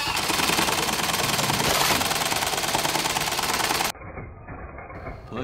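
Reece buttonhole machine stitching a gimped keyhole buttonhole through a leather jacket's cuff, a loud, fast, even clatter of needle strokes. The loud stitching stops abruptly about four seconds in and a quieter machine sound follows.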